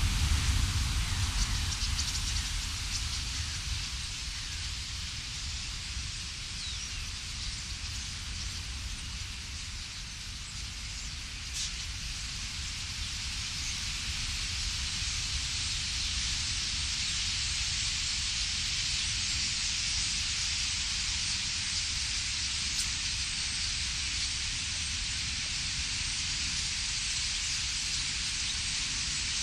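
Massed sound of a huge flock of common starlings in a murmuration: a continuous hissing rush of wings and chatter. It grows gradually louder over the second half.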